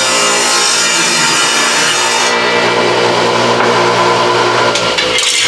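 Table saw running and ripping a thin strip of wood along the fence. The loud cutting hiss stops about two seconds in, the motor keeps running at a steady whine, and a few clicks come near the end.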